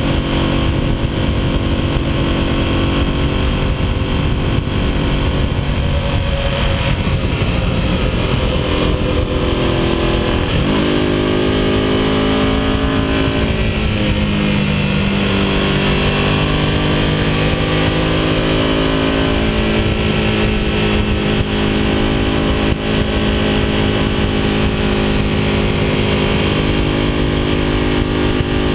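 Vintage motorcycle engine heard from the rider's seat, running at road speed with steady wind noise on the microphone. Its pitch drops and climbs again about ten seconds in and again around fifteen seconds, as the rider eases off and gets back on the throttle or shifts gears through the bends.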